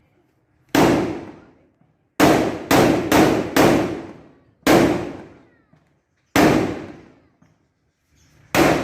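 Large firecrackers (petasan) exploding one after another: eight sharp bangs at uneven spacing, three of them in quick succession about two to three and a half seconds in, each followed by a trailing echo that fades over about a second.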